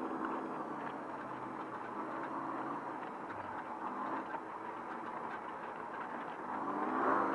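Trophy truck's engine running at low revs on a slow, rough dirt-trail climb, with steady rumbling noise from the truck over the rocky ground. The engine revs up again near the end.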